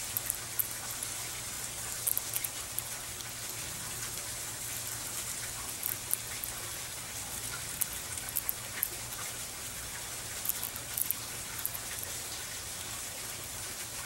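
Gray squirrel cracking and chewing sunflower seeds: short, sharp, irregular clicks, sometimes in quick clusters, over a steady hiss and low hum.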